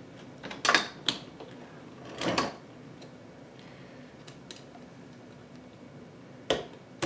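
Parts of a Wondermill Junior hand grain mill clicking and knocking as it is taken apart by hand to loosen the burrs. There are two sharp clicks within the first second or so, a short scrape a little after two seconds, and another knock near the end.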